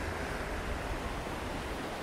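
Steady rushing noise of sea surf and wind, with wind buffeting the microphone in a low, uneven rumble.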